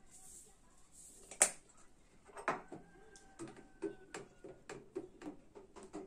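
Small handling sounds from a plastic bottle of lemon salt (citric acid): a soft hiss of granules poured into water, then a sharp click about a second and a half in, which is the loudest sound. After that comes a knock, then a run of light, irregular ticks.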